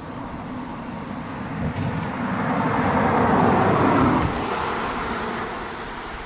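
A car passing by, its road noise swelling to a peak about halfway through and then fading away.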